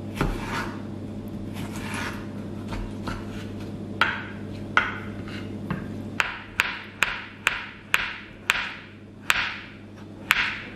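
A kitchen knife slicing cucumber and avocado into thin strips on a wooden cutting board. Soft slicing strokes at first, then from about six seconds in a run of sharp knocks of the blade on the board, about two a second.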